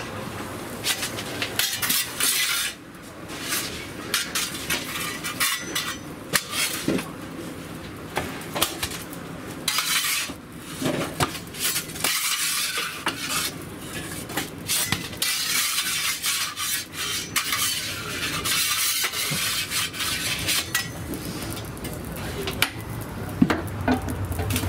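Metal oven peel scraping along the stone floor of a wood-fired oven and clattering on a stone counter as baked breads are slid out, with many separate clicks and knocks and stretches of scraping hiss.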